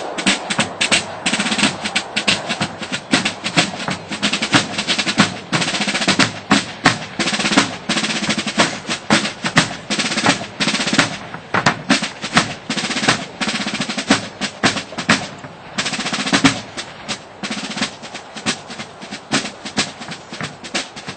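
Military marching drum line of rope-tension snare drums and bass drums playing a fast cadence, with dense rapid snare strokes and rolls over steady bass-drum beats.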